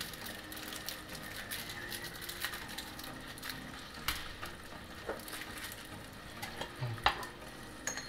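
Thick tomato sauce with potatoes and onions simmering faintly in a pot: soft, irregular crackles and pops, with a few sharper clicks about four, five and seven seconds in.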